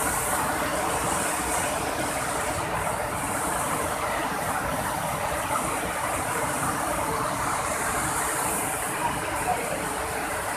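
Flash-flood river water rushing over a concrete weir and through rapids: a steady, even roar of fast, high floodwater.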